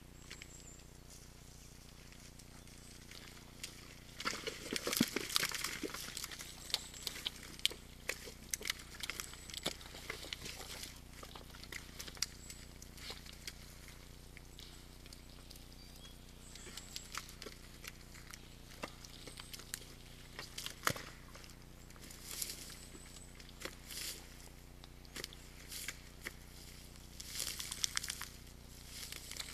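Red deer hinds and calves moving and wallowing in a forest mud wallow: irregular squelching, splashing and rustling, busiest about four to six seconds in and again near the end, over a faint steady low hum.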